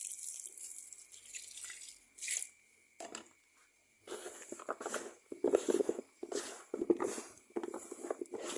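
Cattle eating feed: irregular crunching and rustling that starts about four seconds in, after a couple of seconds of faint hiss.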